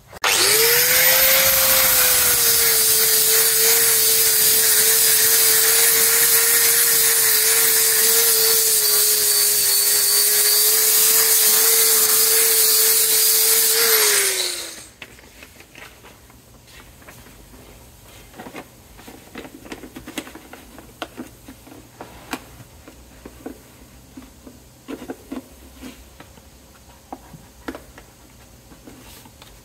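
A handheld power grinder spins up and runs for about fourteen seconds with a steady whine over a harsh hiss as it cuts and grinds out rusted car body metal, then winds down. After that there are scattered light metallic clicks and taps.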